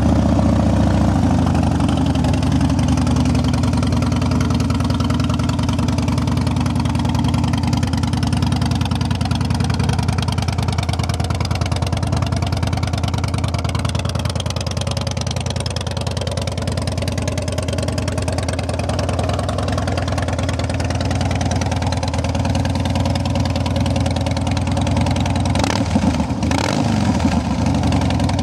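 2007 Harley-Davidson Dyna Super Glide's 96-cubic-inch V-twin idling steadily through aftermarket Vance & Hines exhaust, with a short rise and fall in pitch near the end.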